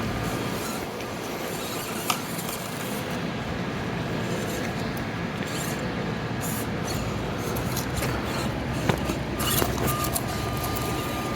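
Axial SCX24 Deadbolt micro RC crawler driving slowly, its small electric motor and gears whirring steadily. Two sharp clicks come, one about two seconds in and one near the end.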